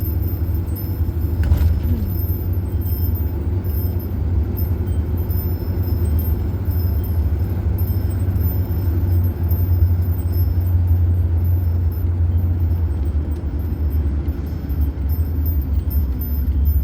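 Steady low rumble of a van's engine and road noise, heard from inside the cabin while driving.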